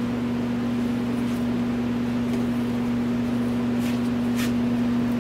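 A steady low machine hum, as of a fan or motor running, with two faint brief scrapes near the end as a small screwdriver works at the metal trim strip of a dash pad.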